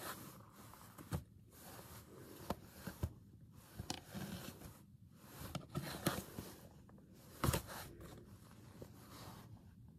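Faint rustling and handling of costume pieces and their packaging, with a few scattered soft knocks, the loudest about seven and a half seconds in.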